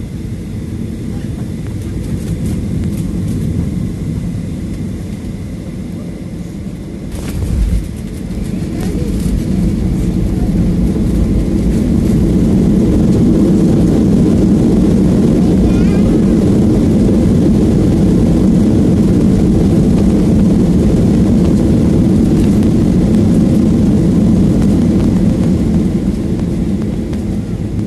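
Boeing 737-800 landing, heard from a cabin window seat: a jolt about seven seconds in as the main wheels touch down and the spoilers deploy. A few seconds later the CFM56 engines build to a loud, steady rush of reverse thrust during the rollout, easing off near the end.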